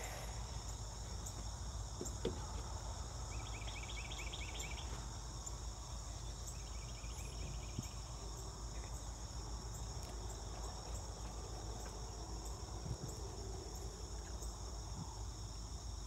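Outdoor chorus of insects: a steady high ringing, with a separate pulsing trill that comes in twice, about three seconds in and again about seven seconds in, over a low steady hum.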